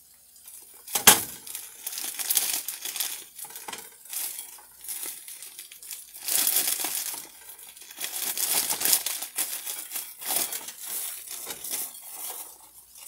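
Plastic salad bag crinkling and rustling in irregular bursts as bagged lettuce is shaken out of it, with a sharp crackle about a second in that is the loudest moment.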